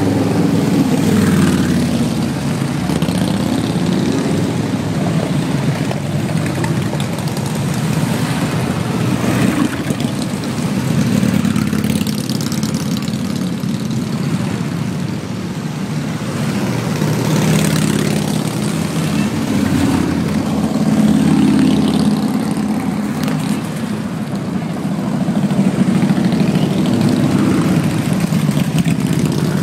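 A procession of motorcycles, mostly large touring bikes, riding past one after another. The low engine sound keeps going and swells and eases as each group goes by.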